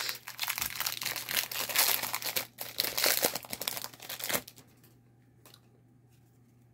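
A 2022 Panini Donruss UFC hobby pack's wrapper being torn open and crinkled: a dense crackling rustle that stops after about four and a half seconds, followed by one faint click.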